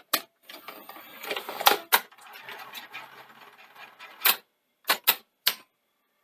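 A run of sharp plastic clicks and clunks with rustling and scraping between them in the first few seconds: Betamax video cassettes being handled and one loaded into the Sony SL-C6 Betamax deck.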